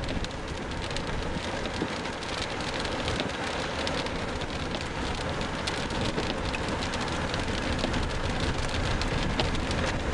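Rain hitting the windshield and roof of a moving car, heard from inside the cabin: a dense, fast patter of drops over steady road noise, growing slightly heavier.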